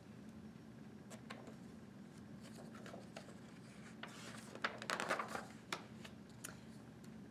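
Faint rustling and light clicks of a hardcover picture book's page being handled and turned, loudest about five seconds in, over a faint steady low hum.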